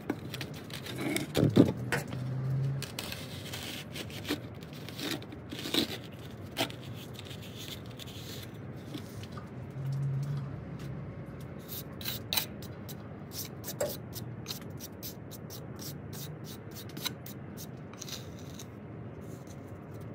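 Hand tool scraping and scratching across freshly applied cement stucco, with irregular rasping strokes and a run of quick sharp ticks in the second half.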